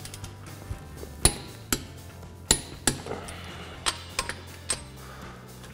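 Torque wrench with a socket on a car's lug nuts: a series of about eight sharp metallic clicks, unevenly spaced, as the nuts are brought to 76 foot-pounds in a cross pattern.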